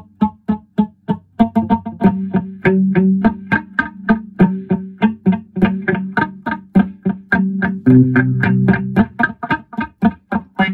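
Instrumental music: a guitar picks a steady stream of notes, quickening a couple of seconds in, over low sustained notes that grow stronger near the end.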